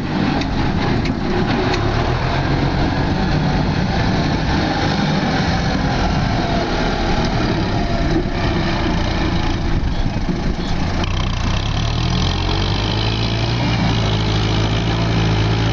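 Diesel farm tractor engine running steadily under load, pushing soil with a front blade.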